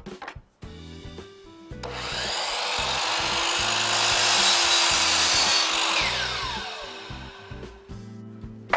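DeWalt sliding compound miter saw spinning up about two seconds in, its blade cutting a miter through a white trim board, then winding down with a falling whine.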